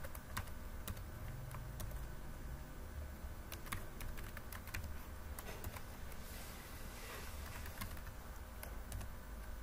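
Computer keyboard being typed on: scattered, irregular key clicks over a faint low hum.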